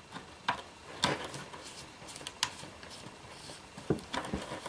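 Irregular metallic clicks and light scraping as a multi-pin circular military connector plug is pushed into its socket and its coupling ring is turned, the loudest click about a second in.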